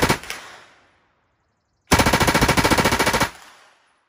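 Stemple/BRP STG-76 open-bolt 9mm submachine gun firing full-auto: a short burst at the start, then a longer, even burst about two seconds in, lasting about a second and a half. The sound trails off after each burst.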